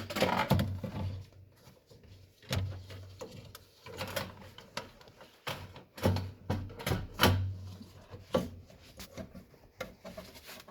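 Irregular clunks, knocks and scrapes from hands working a fuel tank sender unit back into the tank. The loudest knocks come near the start and again around the middle.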